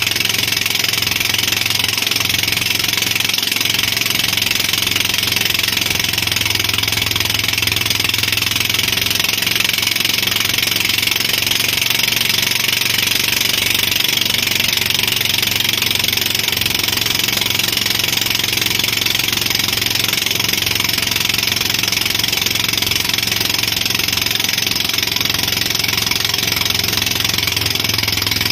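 Towing motorboat's engine running steadily at speed, with a constant loud hiss of rushing water and wind over it.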